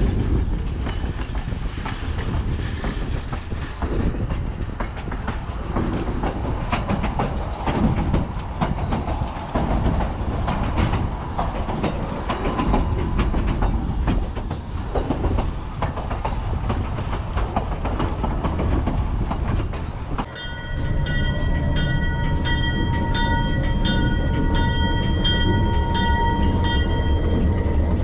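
Narrow-gauge passenger car rolling along, its wheels clacking and rumbling over the rail joints. About twenty seconds in this gives way to a diesel locomotive's engine rumbling, with its bell ringing in quick, even strokes.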